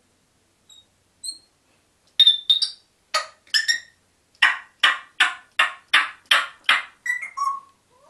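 African grey parrot vocalizing: two short faint whistles, then a run of loud, sharp, harsh calls, first in pairs and then about seven in an even rhythm of roughly two and a half a second, trailing off into softer chirps.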